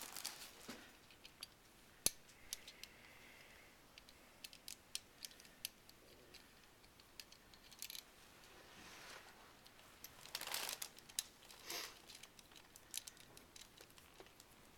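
Faint, scattered clicks and clinks of small metal hand tools and fixator hardware being handled as an external fixator's nuts and rod are taken off, with a couple of brief soft rustles.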